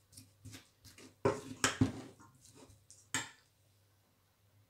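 Metal spoon stirring and scraping floured potato and onion strips in a stainless steel bowl: a run of clinks and scrapes, loudest about a second and a half in, with a last sharp clink near three seconds, then it stops.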